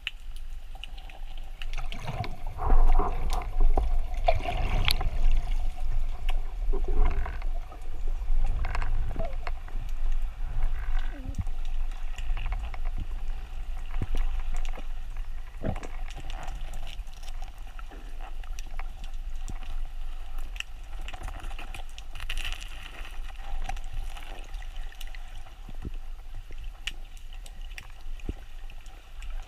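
Underwater sound picked up by an action camera in its waterproof housing: a steady low rumble of moving water with scattered clicks and knocks. The clicks are busiest and loudest in the first several seconds.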